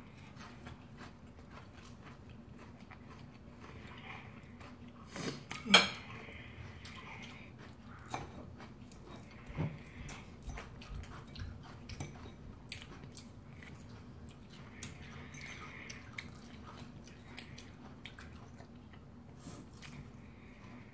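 Cutlery clinking and scraping on ceramic plates and bowls, with soft chewing. One sharp clink about six seconds in is the loudest sound.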